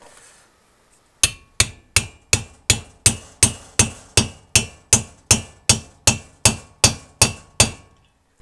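A copper-faced hammer strikes a steel socket extension used as a drift, driving a pre-war Sunbeam valve guide through a copper washer into its heated cast-iron cylinder head. About eighteen even blows come at nearly three a second, starting about a second in.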